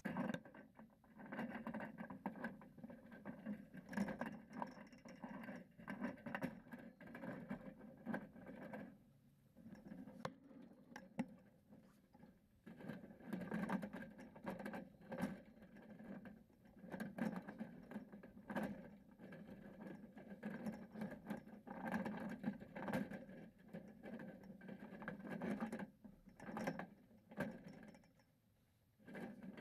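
Chain-link fence wire being worked by hand: irregular small clicks, taps and scrapes of metal mesh as it is twisted and moved, with a couple of brief lulls.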